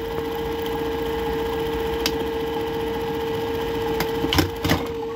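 Juki LBH-761 lockstitch buttonholing machine sewing a test buttonhole at speed after the bartack was shortened: a fast, even stitching rattle over the machine motor's steady hum. Two sharp knocks come close together near the end.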